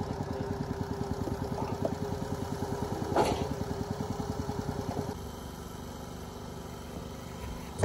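Small engine of a red piggyback forklift idling with an even, fast chugging pulse, with a brief louder burst about three seconds in. About five seconds in the chugging stops, leaving a lower steady sound.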